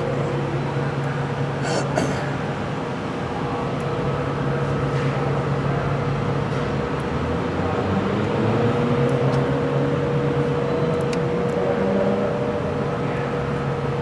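A Honda's engine idling steadily, with a low hum and a mid-pitched tone, the pitch drifting slightly upward in the middle before levelling off.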